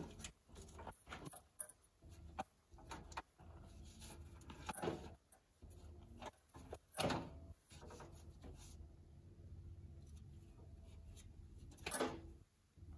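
Scattered knocks and clicks of hand tools and metal parts being handled during mechanical work, the loudest about 5, 7 and 12 seconds in, over a faint steady hum.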